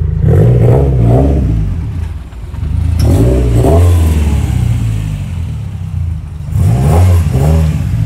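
Car engine revving hard under acceleration, rising in pitch three times with drops between, as it pulls up through the gears.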